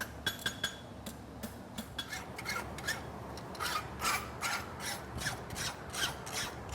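A file being stroked across a hot steel horseshoe branch, each stroke a short rasping scrape; the strokes turn quicker and louder from about halfway in, at about three a second.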